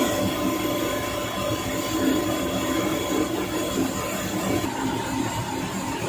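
Old package-type air-conditioning unit running, its three-phase screw compressor giving a steady mechanical drone with a thin, steady whine on top.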